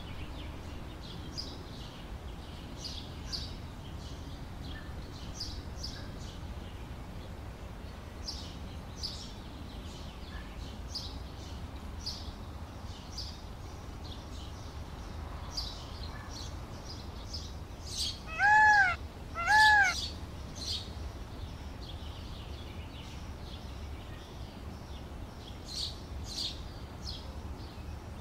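Indian peafowl (peacock) giving two loud, arching wailing calls about a second apart, about two-thirds of the way in. Small birds chirp in the background throughout.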